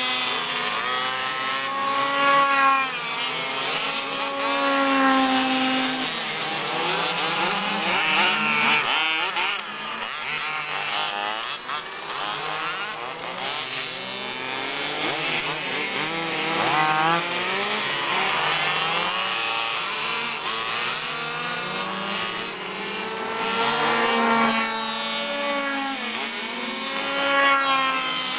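Several gas-powered 1/5-scale Baja RC buggies with small two-stroke engines buzzing around the track. Their pitch keeps rising and falling as they accelerate out of corners, brake and pass, with several engines overlapping.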